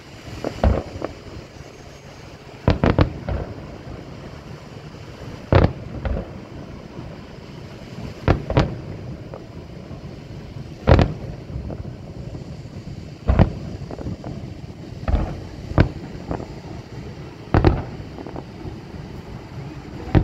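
Aerial firework shells bursting, a sharp bang every two to three seconds, some coming in quick pairs or a triple.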